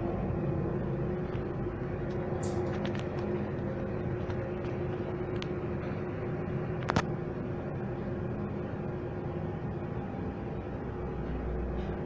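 Lift-Mark passenger lift from 2018 travelling downward: a steady hum with one constant tone, a few light clicks about two to three seconds in, and one sharp click about seven seconds in.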